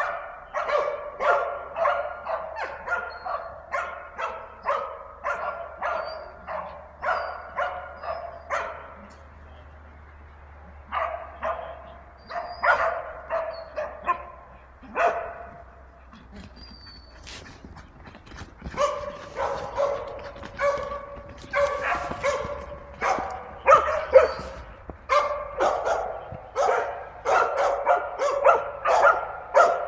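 Hunting dogs, including a Bedlington terrier, baying a wild boar: rapid repeated barking, about two barks a second, easing off twice for a second or two partway through.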